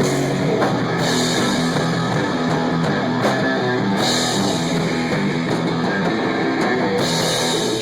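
Rock band playing a song in rehearsal, electric guitar to the fore, steady and loud.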